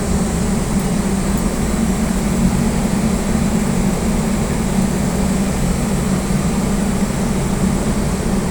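Air handling unit soft starter humming loudly and steadily, with a faint high whine above the hum and the rush of the running unit underneath.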